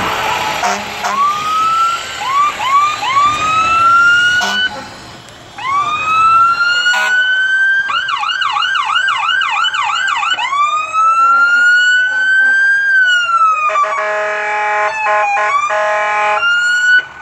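Fire apparatus sirens: short rising whoops, then a long rising wail, a fast yelp at about three cycles a second, and another wail that climbs and then falls away. A few horn blasts with short breaks come after that, and more short siren whoops near the end.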